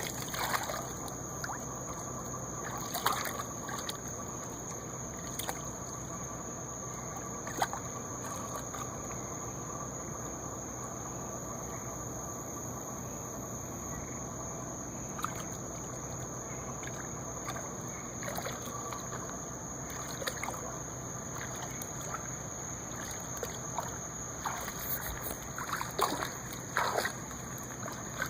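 Water lapping and trickling at the water's edge at night, with scattered small splashes and knocks, more of them near the end.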